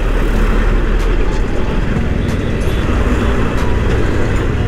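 Bajaj Pulsar 220's single-cylinder engine running as the motorcycle is ridden slowly over a rough dirt road, heard as a steady low rumble with a few faint clicks.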